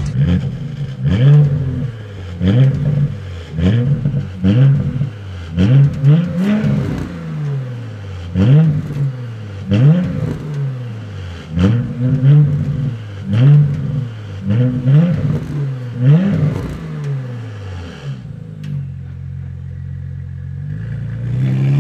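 Porsche Panamera 4's 2.9-litre twin-turbo V6 heard through its exhaust, whose stock mufflers have had their internals reworked for a fuller sound. The engine is blipped about a dozen times in quick succession, each rev rising and falling, then settles to a steady idle before another rev starts at the very end.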